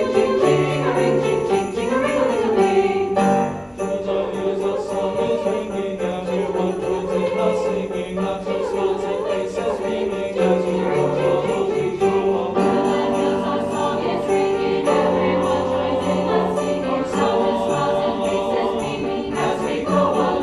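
Live ensemble music with sleigh bells jingling in a steady rhythm over sustained chords.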